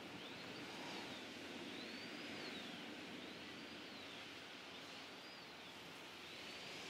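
Faint outdoor background hiss, with a faint high tone that rises and falls in a steady cycle about every second and a half.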